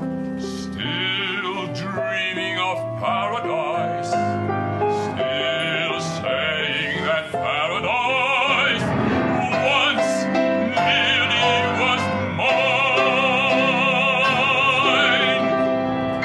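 Operatic baritone singing with a wide vibrato over piano accompaniment, closing on a long held note near the end.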